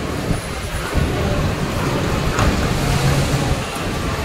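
Railway station platform ambience: a steady wash of noise with a low rumble underneath.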